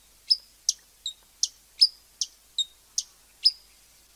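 Bird chirping: a run of about ten short, high chirps, two or three a second, which cuts off suddenly at the end.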